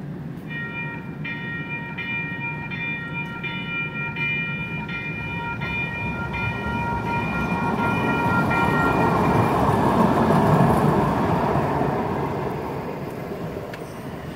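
Siemens-Duewag U2A light rail car approaching a street crossing, its warning signal ringing in quick repeats, about three strikes every two seconds, for some nine seconds. The train's running rumble then swells to a peak about ten seconds in as it passes and fades away.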